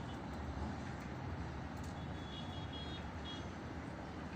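Steady low rumble of distant road traffic, with a few short, faint high-pitched beeps about two to three seconds in.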